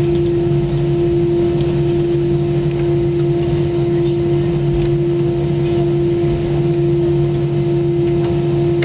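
Steady cabin noise of an Airbus A320 taxiing with its jet engines at idle, heard from a window seat: a constant hum carrying one steady tone, with no change in pitch or loudness.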